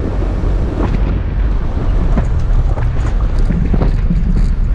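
Toyota FJ Cruiser driving on a deep-sand trail: a steady low rumble of engine and tyres with wind buffeting the microphone, broken by frequent short knocks and rattles from the rough going.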